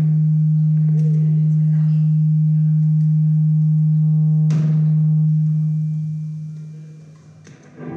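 A loud, steady low tone held for about five seconds, with a click partway through, then fading away.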